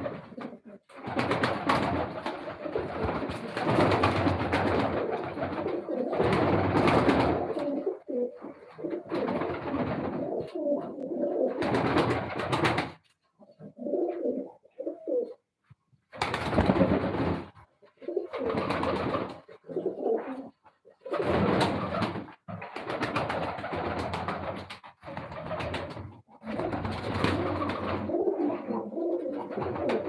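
Fancy pigeons cooing over and over, in bouts of a few seconds with short pauses between.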